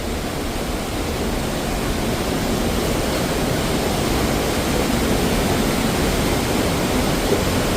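Waterfall's steady rushing noise, gradually growing louder.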